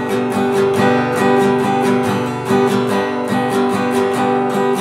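Acoustic guitar strummed in quick, even down-up strokes on one held chord, with no accents. This is the flat, unaccented way of playing the 3-3-2 strumming pattern, which lacks the accents it needs.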